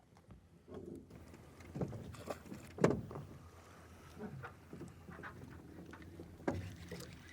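Water splashing and slapping around a small fishing boat, with a few sharp knocks. The loudest knock comes about three seconds in.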